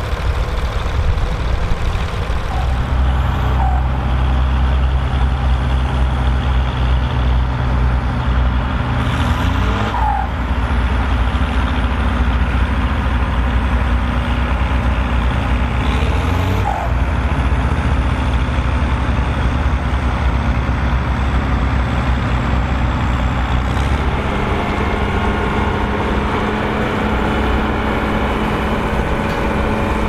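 Volvo BM tractors' diesel engines running steadily under load while ploughing. A high whine rises sharply and then slowly falls, three times. The engine sound changes about six seconds before the end.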